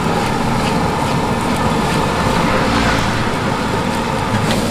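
Nasi goreng being stir-fried in a large steel wok, a metal spatula scraping and turning the rice, over a steady rumbling noise.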